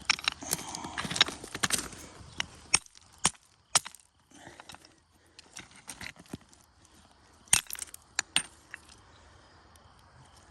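Footsteps crunching over creek-bed gravel and chert for the first few seconds, then scattered sharp clacks of stone on stone, a few at a time about half a second apart.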